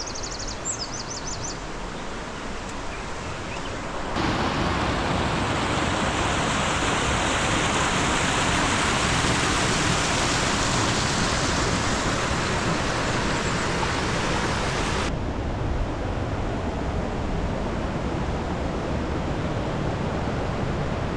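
Rushing water of a mountain river and waterfalls, a steady noisy rush. It gets louder about four seconds in and quieter again about four seconds before the end.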